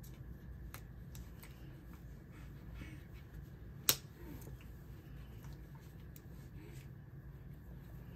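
Soft rustling as a baby's striped overalls are handled and fastened, with a few faint clicks and one sharp snap about four seconds in, like a snap fastener on a strap being pressed shut.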